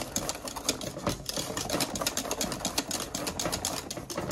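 Wire balloon whisk beating mashed potatoes in a stainless steel pot, a fast, steady run of clicks as the wires strike the pot's sides. The potatoes are being whipped with milk and butter into a smooth purée.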